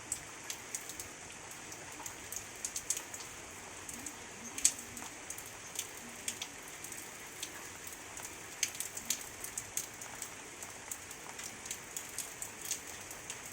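Rain falling: a steady hiss with many individual drops ticking sharply at irregular intervals.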